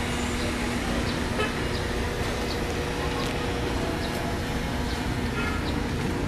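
Street traffic ambience: a steady rumble of vehicle engines and road noise, with scattered faint short sounds.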